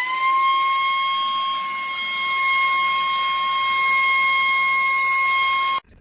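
Shark WandVac 2.0 cordless handheld vacuum running with a steady high-pitched motor whine, still settling from a rise in pitch at the start. It cuts off suddenly near the end.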